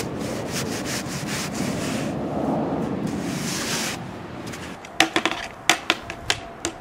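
Cat 268B skid steer loader working snow: its diesel engine runs under a steady scraping noise as it pushes snow. About five seconds in come several sharp knocks and clacks in quick succession.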